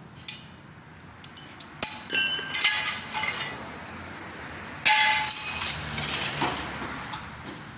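Metal tools and steel suspension parts clanking and ringing during ball-joint work on a Toyota Hilux's front suspension: a few light clicks, then irregular sharp metallic hits from about two seconds in, the loudest near the five-second mark.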